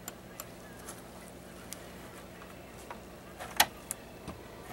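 Light metal clicks of the small steel parts of a .22 bolt-action rifle's bolt, the coiled firing-pin spring and striker, being handled and fitted together, with one sharper click about three and a half seconds in.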